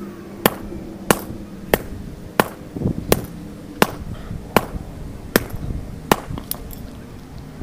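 Sledgehammer hammering a Master Lock dial combination padlock: about ten sharp blows in a steady rhythm, roughly one every 0.7 seconds, as he tries to smash the lock until the shackle pops loose.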